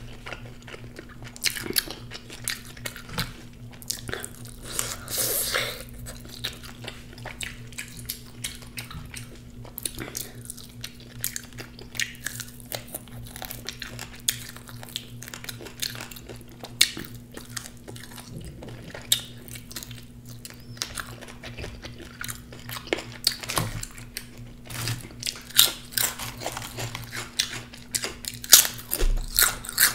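Close-up biting and chewing of crispy KFC fried chicken dipped in hot sauce, with repeated sharp crunches throughout.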